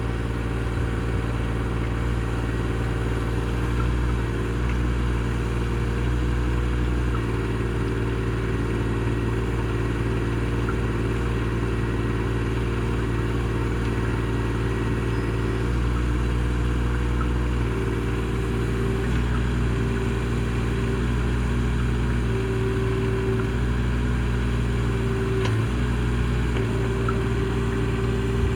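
Mini excavator engine running steadily, its tone shifting every few seconds as the hydraulics take up and drop load, with a brief knock near the end.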